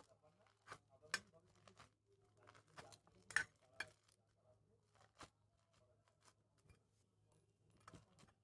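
Faint, sparse clicks and crackles from handling crunchy floam slime and piping bags, with a sharper click about three and a half seconds in.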